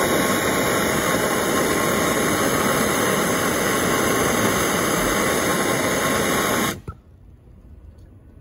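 Handheld gas torch hissing steadily as its flame burns the frayed end of a recoil-starter rope to seal it. The hiss cuts off suddenly about seven seconds in.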